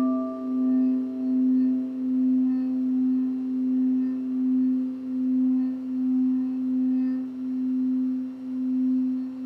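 Singing bowls ringing on: a steady low tone with a slow, regular pulsing wobble, its higher overtones fading out over the first few seconds.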